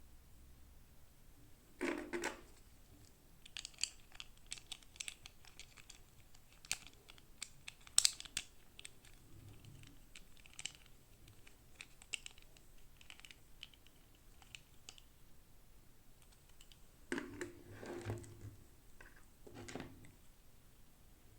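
Hands handling small plastic toy-doll packaging and pieces: a run of small sharp clicks and taps, with brief rustling, crinkling bursts about two seconds in and again near the end.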